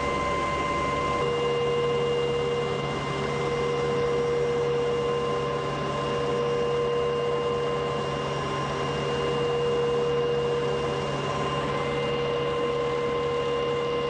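Helicopter cabin noise in flight: a steady whine of the engines and transmission, several high steady tones over a constant hiss.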